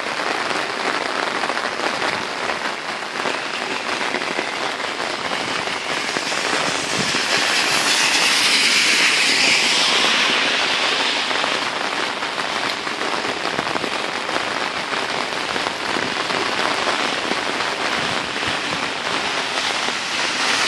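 Heavy typhoon rain falling steadily, a dense patter of drops on wet paving. About a third of the way through, a louder hiss swells and fades over a few seconds.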